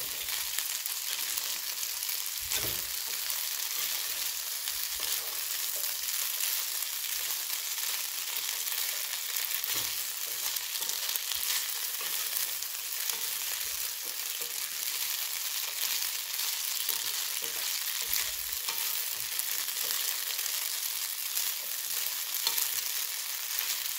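Boiled fusilli pasta with potatoes and carrots frying in a non-stick pan: a steady sizzling hiss, with light scrapes and clicks as a wooden spatula stirs it through so it doesn't stick.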